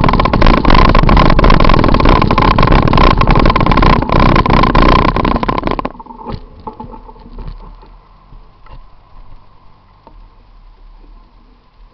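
Bicycle-mounted camera rattling and vibrating, with road and wind noise, as the bike rides over a paved sidewalk; the noise cuts off suddenly about six seconds in as the bike stops. After that, faint street traffic with a few light clicks.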